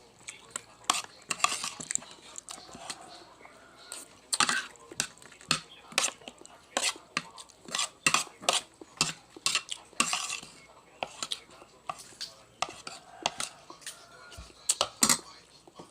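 Cutlery clinking and scraping against a plate during a meal: irregular sharp clicks, one to three a second.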